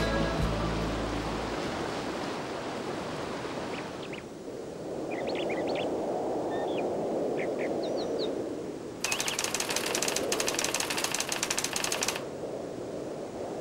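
A steady rushing outdoor ambience with a few short bird chirps in the middle, then, about nine seconds in, some three seconds of rapid typewriter-like clattering, a sound effect for a caption being typed out on screen, which stops abruptly.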